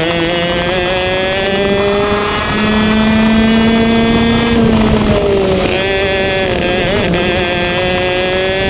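Racing kart engine under hard throttle, its pitch rising steadily as it pulls, then dropping sharply about halfway through as the driver lifts for a bend, and running on at a steady, lower pitch.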